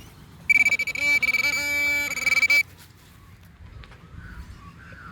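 Metal detector signal over a buried coin: a loud, steady high-pitched electronic tone with warbling lower tones under it, lasting about two seconds from half a second in before cutting off suddenly.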